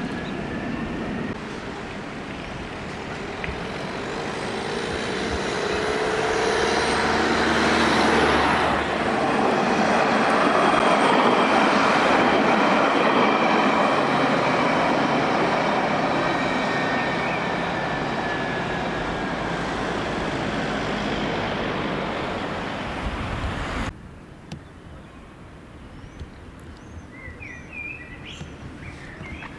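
Alstom Citadis tram approaching and passing close by: the rumble of its wheels on the rails and the steady tones of its electric drive grow louder to a peak about ten seconds in, then fade. About 24 seconds in the sound cuts off sharply to a quieter background with a few short bird chirps.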